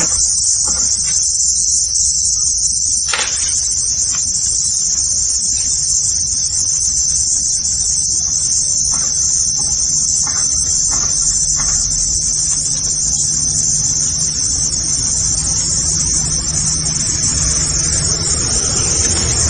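Steady, high-pitched chorus of insects droning without a break, with no pauses in the buzzing.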